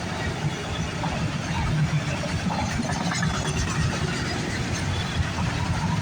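Freight train passing, its cars rolling by with a steady low rumble of wheels on the rails.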